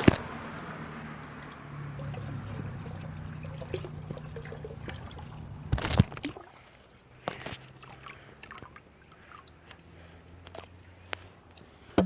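Water pouring and trickling onto a Lego beach, with a low steady hum underneath. It is loudest at the start and fades, going quieter after about six seconds. There are sharp clicks at the very start and about six seconds in, with a few smaller clicks later.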